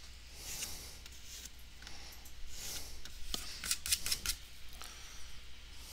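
Small handling noises at a work desk: a few short scraping swishes, then a cluster of sharp clicks between about three and four and a half seconds in.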